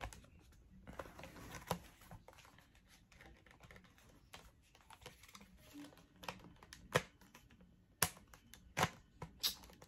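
Scattered plastic clicks and rattles of a splatter-ball gel blaster being handled as a beam attachment is slid and seated on its mount, with a few sharper clicks in the last three seconds.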